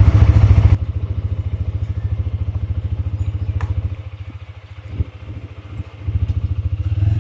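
TVS Apache RTR 160 4V motorcycle's single-cylinder engine running as the bike rides off at low speed, a steady low pulsing exhaust note. It drops suddenly in loudness about a second in, dips further midway with a single click, and picks up again near the end.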